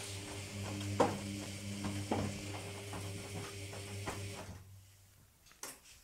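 Logik front-loading washing machine on its main wash: the drum motor hums as the drum turns, with water and laundry sloshing and a few thuds. About four and a half seconds in the motor stops and the drum comes to rest, followed by a single click near the end.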